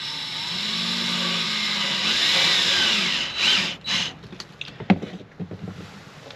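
A handheld power tool runs under load for about three seconds, its pitch wavering. It is followed by two short bursts and a sharp knock.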